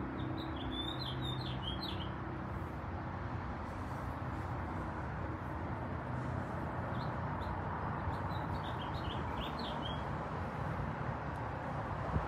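A small bird chirping in two runs of quick, high chirps, the first at the start and the second in the latter half, over a steady background hiss.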